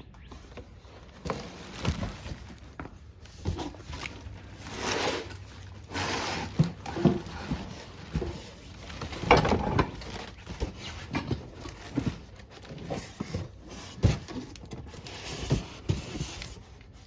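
Cardboard box and packing being handled as a boxed bench grinder and its loose parts are unpacked: irregular rustling and scraping with scattered knocks and clicks.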